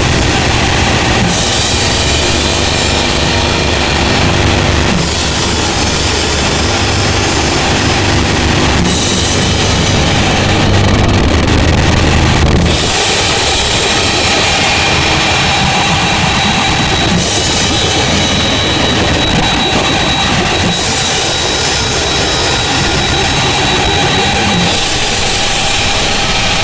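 Harsh noise wall: a dense, unbroken wall of distorted static at constant loudness, its texture shifting every few seconds. The deep low rumble drops away about halfway through.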